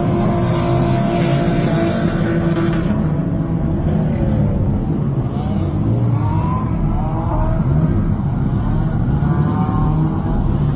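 Drift cars' engines running loudly, with the revs rising and falling several times.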